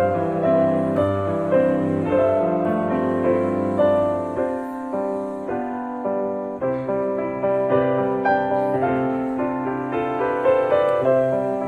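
Background piano music: a slow melody of struck notes over sustained lower notes.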